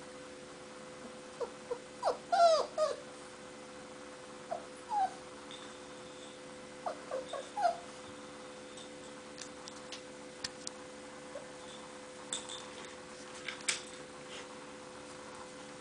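Poodle puppy whimpering in short, high, bending whines, several in quick succession during the first eight seconds, then quieter, with scattered light clicks and taps in the latter half. A steady hum runs underneath.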